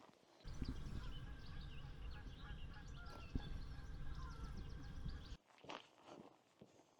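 Small birds singing, many short chirps and trills over a low steady rumble, which stops abruptly after about five seconds.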